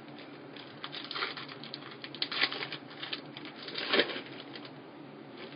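Trading cards being handled and flipped through: a run of quick paper flicks and rustles, loudest about two and a half and four seconds in.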